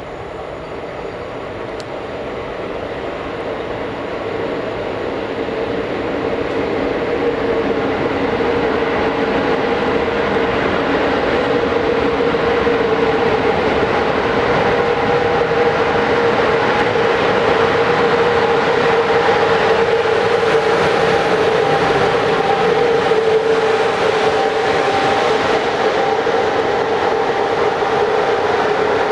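Class 060-EA electric locomotive and its passenger coaches rolling into a station. The rumble grows steadily louder as the train approaches and passes, with a steady tone running under it.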